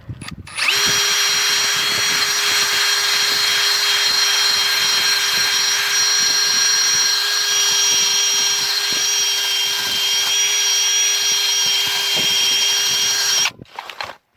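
Electric power tool running at a constant speed with a steady whine. It starts about half a second in and stops abruptly about a second before the end.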